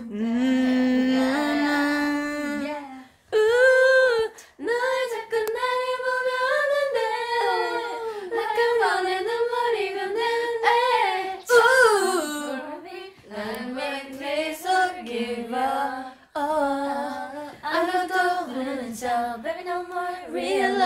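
Young women's voices singing a K-pop ballad a cappella, with no instruments: one melodic line of held notes and sliding pitch, broken by short breaths.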